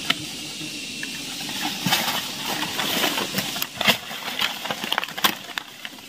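Hands rustling through dry fallen leaves while picking small fruits off the forest floor, with a scatter of sharp clicks and taps, the loudest about two, four and five seconds in.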